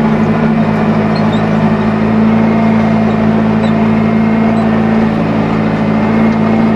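Tractor engine running steadily under load, powering a Kuhn GA 13131 four-rotor rake while windrowing grass.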